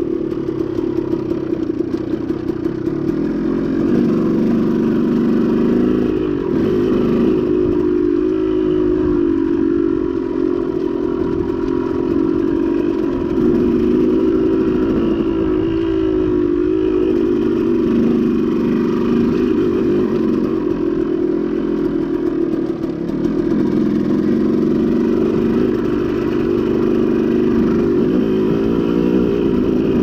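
KTM two-stroke dirt bike engine running under load, its pitch rising and falling as the throttle opens and closes, with some rattle from the bike.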